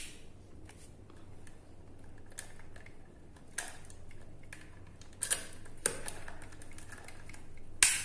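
Scattered sharp plastic clicks and taps, about half a dozen louder ones among fainter ones, from handling a white 15 A switched round-pin socket plate and its rocker switch, over a faint steady low hum.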